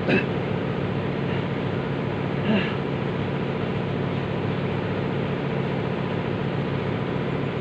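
A machine running with a steady, unchanging drone made of many evenly spaced tones.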